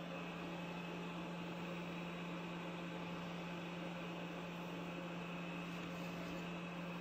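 A powered machine running with a steady low hum, a soft hiss and a faint high whine.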